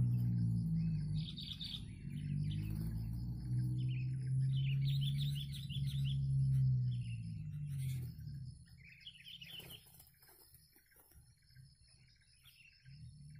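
Sooty-headed bulbuls chirping in short clusters of calls, over a low pitched hum that is the loudest sound and fades out a little past halfway.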